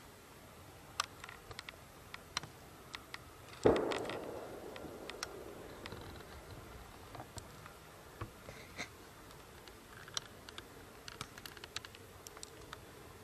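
A distant rifle shot about four seconds in: one sharp report with a long echoing tail that dies away over about two seconds. Scattered faint ticks and rustles come before and after it.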